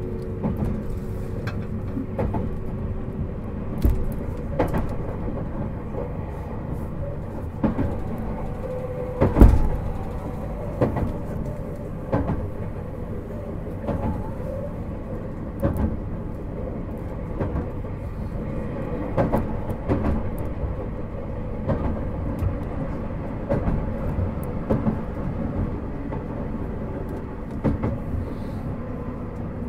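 Running sound inside a JR Hokkaido 721 series 4000-subseries electric train car (Toshiba GTO inverter): a steady rumble of wheels on rail with irregular clunks over the track, the loudest a heavy thump about nine seconds in. A pitched hum fades out within the first few seconds.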